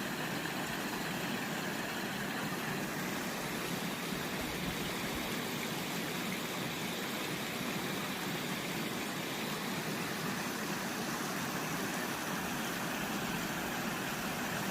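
Mountain valley stream flowing over rocks: a steady, unbroken rush of water.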